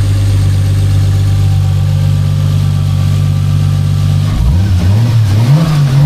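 Toyota 1JZ-GTE VVT-i turbocharged inline-six idling steadily, then revved in blips from about four seconds in, the pitch rising and falling twice. It is running smoothly on a new VVT-i oil control solenoid; the old one stuck advanced and gave a lumpy, cammed idle.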